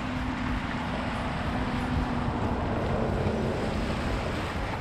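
Wind buffeting the microphone over small waves washing against shoreline rocks, with a faint steady hum that fades out a little after the middle.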